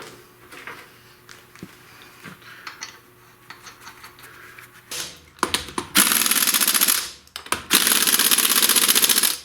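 Pneumatic impact wrench hammering in two long bursts of about a second and a half each, tightening wheel lug nuts through a torque-limiting extension (80 ft-lb). A few light metal clicks of handling come before it.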